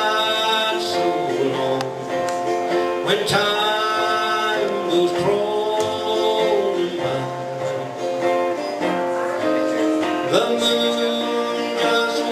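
Country-style background music with acoustic guitar and singing.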